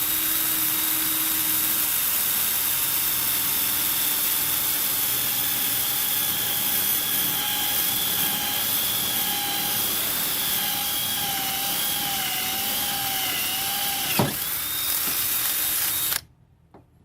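Electric drill running steadily while boring a hole through an old battery cable terminal. Its whine wavers in pitch as the bit works, dips sharply for a moment about fourteen seconds in, then picks up and cuts off abruptly about a second before the end.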